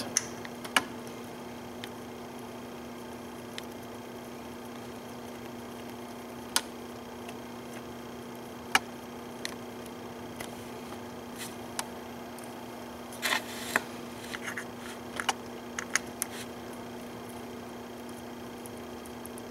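Scattered small metallic clicks and taps as bolts are turned by hand into a BMW straight-six's water pump pulley, with a short cluster of them about two-thirds of the way through, over a steady low hum.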